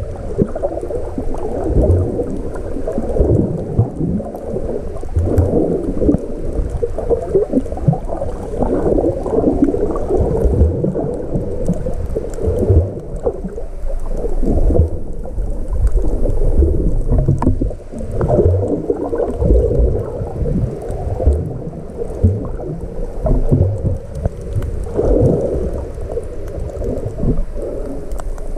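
Water sloshing and gurgling around a submerged action camera, heard through its waterproof body. The sound is low, muffled and irregular, swelling and easing unevenly throughout.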